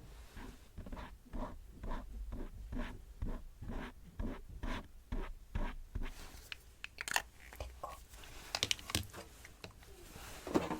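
Close-miked ASMR handling sounds: soft rhythmic strokes, about two to three a second, like a brush or tool rubbing, then, about six seconds in, sharper clicks and crinkling taps.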